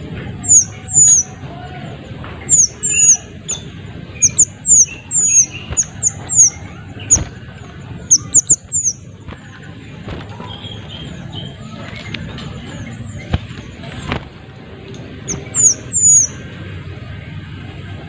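Small minivet calling: quick series of thin, very high, down-slurred notes, often in twos and threes. The calls thin out around the middle and come in one more short cluster near the end, over a low background noise.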